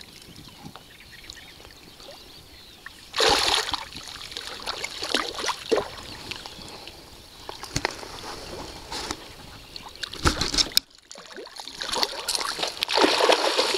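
A small hooked pike thrashing at the water's surface, splashing in irregular bursts. The loudest splash comes about three seconds in, and the splashing is busiest near the end.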